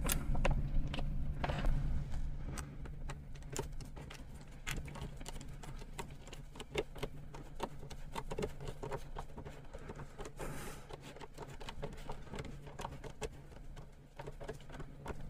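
A hand screwdriver driving a screw into the mounting frame: quiet, irregular small clicks and scrapes over a steady low hum.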